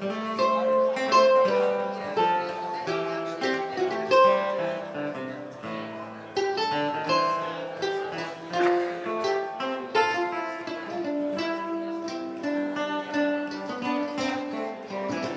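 Acoustic string band playing an instrumental passage: quick picked mandolin notes over strummed acoustic guitar and upright bass.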